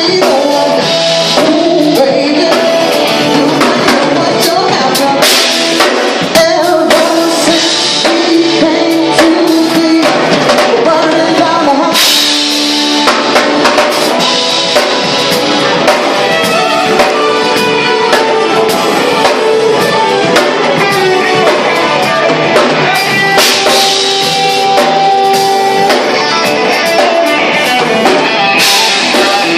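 A live funk band playing: drum kit, electric guitar and a singing voice, loud and continuous.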